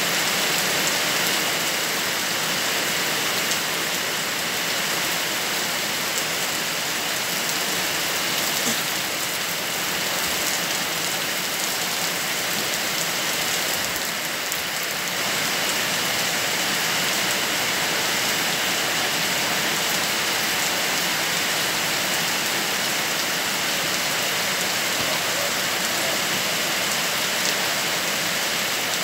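Steady rain falling, a continuous even hiss that does not let up.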